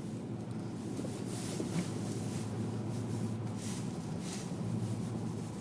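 Steady low rumble of a vehicle driving slowly, heard from inside the cab, with faint scattered clicks and rattles.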